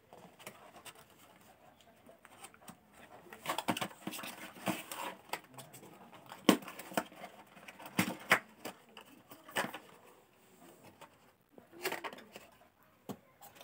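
Unboxing handling noise: cardboard packaging and the headphones being handled and lifted from their tray, giving rustling and scraping with scattered taps and clicks, the sharpest about six and a half and eight seconds in.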